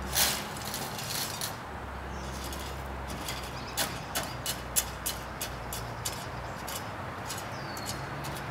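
Irregular light clicks and taps of hand work on a metal greenhouse frame at its base: one sharper click just after the start and a quick uneven run of clicks about four to five seconds in, over a steady low hum.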